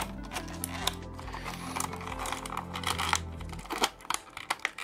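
Clear plastic packaging crinkling and crackling as it is handled and pulled apart, over background music with held low notes that stops a little before the end.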